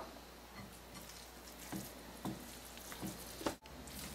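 Spatula stirring thick moong dal batter in a glass bowl: faint, soft, uneven strokes every half second to a second, with a sharper tap at the start.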